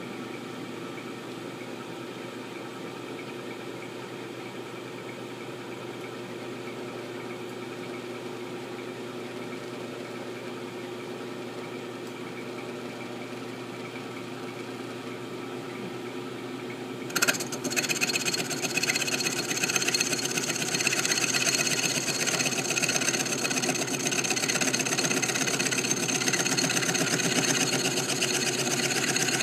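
Milling machine running steadily while slotting a steel M1911 pistol slide. About seventeen seconds in there is a sharp click, and from then on it runs louder and harsher, with a brighter, higher sound.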